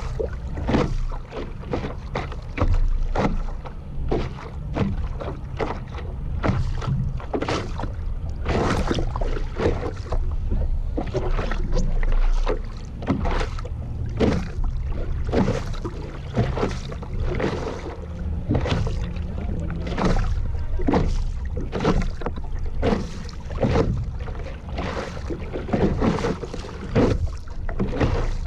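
Water splashing and slapping against a stand-up paddleboard as it is paddled through light chop: many short, irregular splashes, one or two a second, over a steady low rumble.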